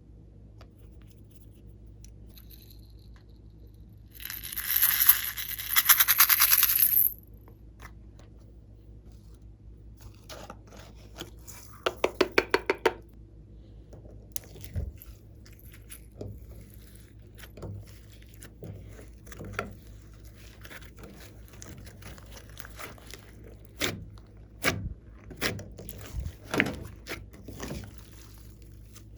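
Glossy slime being worked by hand, with scattered sticky clicks and pops. A loud, dense crackling lasts about three seconds from about four seconds in, and a quick run of pulses comes about twelve seconds in.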